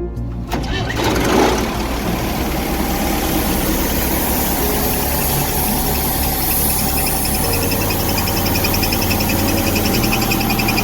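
Diesel engine running with a steady clatter, coming in about half a second in.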